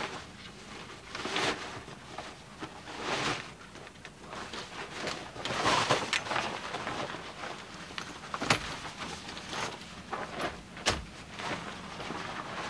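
Folding camp chair being pulled out of its nylon carry bag and opened out: irregular fabric rustling and swishing, with a few sharp clicks and knocks of the chair frame in the second half.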